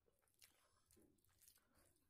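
Faint eating sounds: soft, wet squishing of fingers mixing rice and curry on a plate, with quiet chewing and small clicks.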